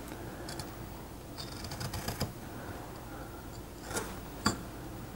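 Carving knife cutting into a basswood block, taking small chips against a stop cut: a few faint crisp clicks and scrapes, with a little cluster in the middle and two sharper clicks near the end.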